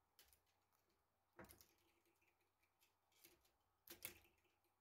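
Near silence, with a few faint clicks and rubs of plastic filament and PTFE tube being handled in a 3D-printed splicer. The loudest come about a second and a half in and again near the end.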